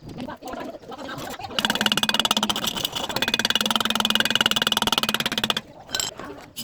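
Welding arc buzzing and crackling for about four seconds, starting a moment in and cutting off sharply, likely a spot or tack weld on thin sheet metal.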